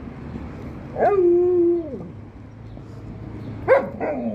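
Alaskan Malamute vocalising at a puppy in warning over her ball. About a second in she gives one long call that starts high, holds steady and then drops away; near the end come two shorter, sharp calls that fall in pitch.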